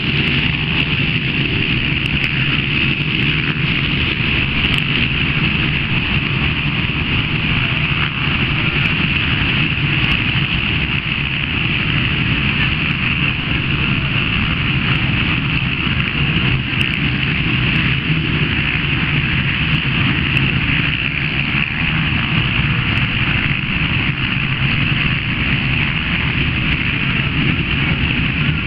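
Engines of a pack of racing quad bikes running together, a steady, unbroken mechanical sound.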